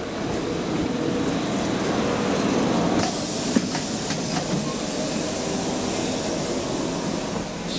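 A standing Lidingöbanan A30B tram running its equipment: a steady hum, with a loud hiss that sets in about three seconds in and holds, and a few light knocks.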